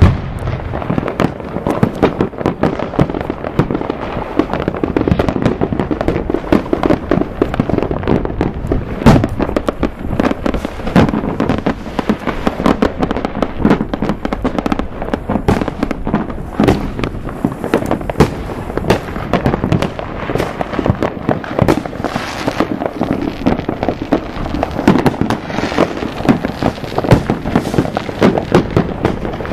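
Many fireworks going off at once: a dense, unbroken barrage of overlapping bangs and crackling.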